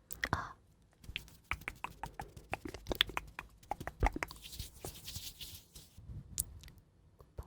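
Close-miked ASMR trigger sounds: a rapid irregular run of small crisp clicks and crackles starting about a second in, with a short soft hiss near the end.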